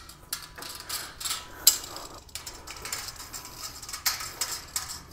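Light metallic clicking and rattling from a thin stainless-steel cart frame as a bolt is lined up and worked through its holes by hand, with one sharper click a little under two seconds in.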